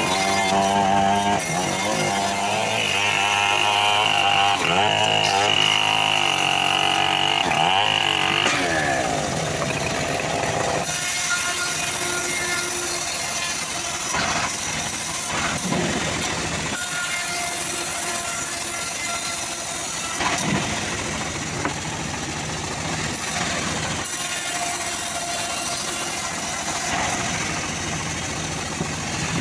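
Homemade bandsaw sawmill running as teak is sawn, a steady machine drone. For the first eight seconds or so a wavering pitched sound sits over it, and then it breaks off abruptly.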